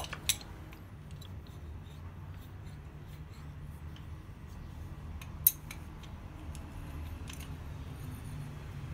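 Scattered light metal clicks and clinks from a steel rotary hot shear being handled: the rotary disc turned by hand and a steel rod slid into its hole, with one sharper click about five and a half seconds in. A steady low hum runs underneath.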